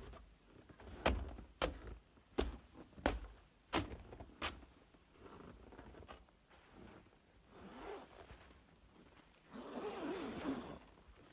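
Six sharp knocks in a row, a little over half a second apart, followed by two spells of rustling and scraping handling noise.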